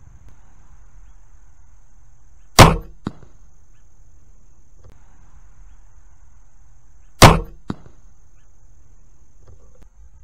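Barnett Recruit crossbow shot twice: each a loud, sharp crack of the string release, followed about half a second later by a fainter knock, the bolt striking the target downrange.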